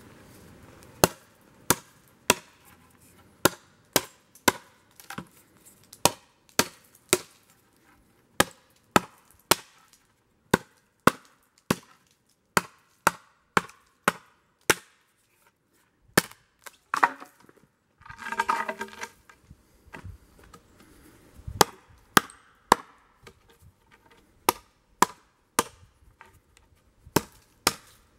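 Paracord-handled War Hawk tomahawk chopping into an upright wooden post: a long run of sharp wooden chops in a steady rhythm, roughly one to two a second, with a short pause about halfway through.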